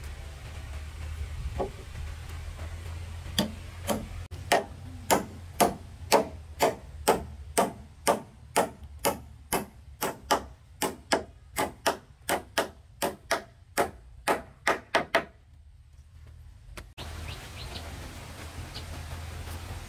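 Hand tool striking wood over and over at an even pace, about two to three blows a second for some twelve seconds, then stopping. A steady low hum runs underneath.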